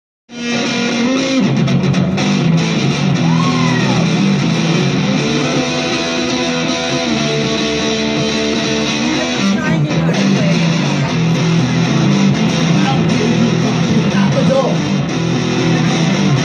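Electric guitar, an S.U.B. AX4, played live through a VOX AD30VT amplifier, with held notes and string bends.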